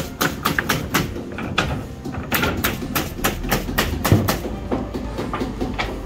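Hammers driving nails into wooden roof sheathing boards laid over rafters: rapid, irregular knocks, several a second, from more than one worker at once.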